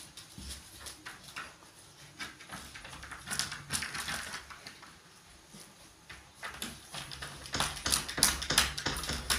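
A puppy pawing and scratching at a wooden door to be let through, with a run of quick scratches and knocks about three seconds in and a louder, faster flurry near the end.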